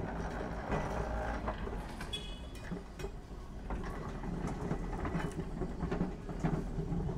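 Vintage electric tram running on its track: a steady low hum with scattered clicks and rattles, and a brief high squeal about two seconds in.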